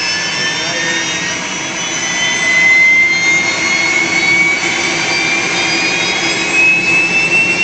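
An airliner's auxiliary power unit (APU), the small gas turbine in the tail cone, is running with a steady rushing noise and a high whine that slowly rises in pitch. This is the noise heard beside a parked airliner whose main engines are shut down, with the APU supplying its power and air conditioning.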